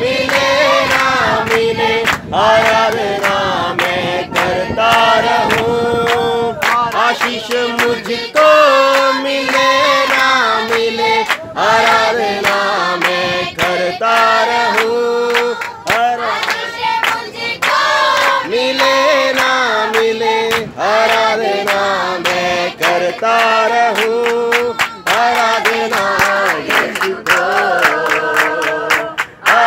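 A group of voices singing a Christian worship song together, with rhythmic hand clapping on the beat; the clapping comes faster and thicker near the end.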